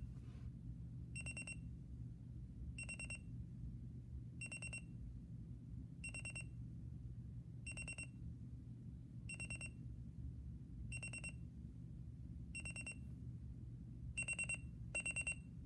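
Sony ICF-C1 alarm clock's buzzer alarm sounding, short clusters of rapid high beeps repeating about every second and a half. About 14 seconds in the clusters come faster and louder, the alarm stepping up its rate and volume the longer it runs.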